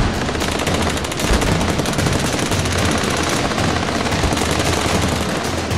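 Popcorn kernels popping rapidly in a frying pan under a glass lid, a dense, continuous rattle of pops.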